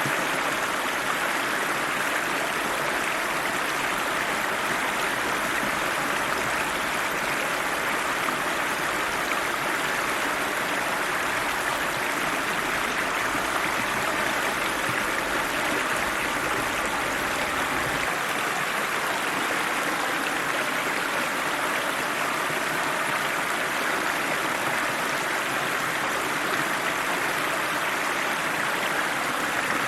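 River water flowing steadily, an even rushing noise without breaks.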